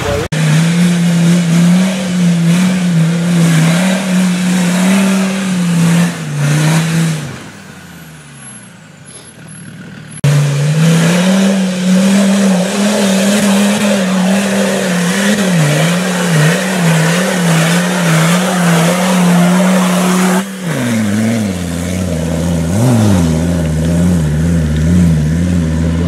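Off-road Land Rover 4x4 engines held at high revs under hard load, in several cuts. The first runs steady for about seven seconds, then fades away with falling pitch. About ten seconds in, another engine comes in loud and pulling hard. Near the end the revs swing up and down.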